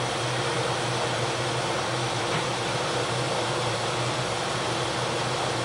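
Steady machinery and ventilation noise in a warship's engineering main control: an even rushing noise with a constant low hum underneath, from the running propulsion plant and blowers.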